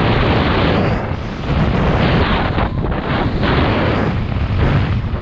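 Wind buffeting the camera's microphone during a fast downhill ski run, mixed with the hiss of skis running through powder snow; the hiss rises and falls with the turns.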